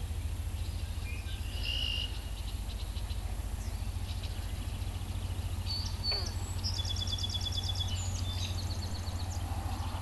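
Birds calling in the open marsh: scattered short chirps, then a rapid repeated trill from about seven seconds in, over a steady low rumble.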